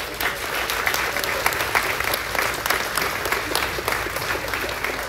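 Audience applauding: many hands clapping at once, strongest in the middle and thinning out near the end.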